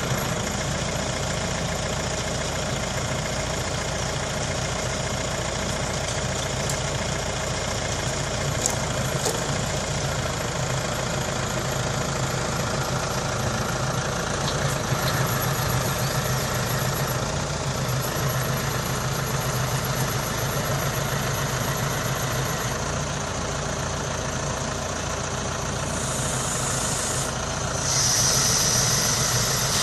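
Engine of a grapple log loader running steadily, with a couple of sharp knocks about nine seconds in. The sound grows louder and brighter near the end.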